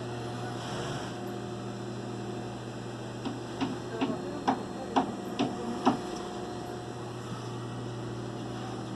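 Steady electric hum, as from a sewing machine's electric motor left running. Between about three and six seconds in it is broken by a series of about eight sharp metallic clicks.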